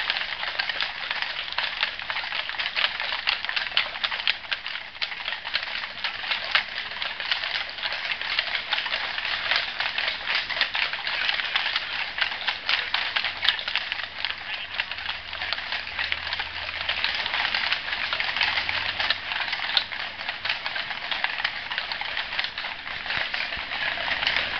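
Many horses walking on an asphalt street, their hooves making a dense, continuous clip-clop clatter.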